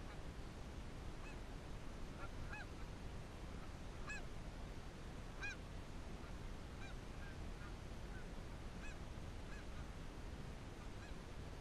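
Canada geese honking in the distance: a dozen or so short single honks at irregular intervals, faint over a steady low wind rumble.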